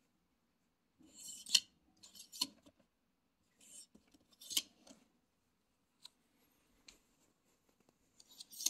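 Steel ball-bearing drawer slide being run in and out by hand several times. Each stroke is a short metallic rattling rush that ends in a sharp click as the slide reaches its stop.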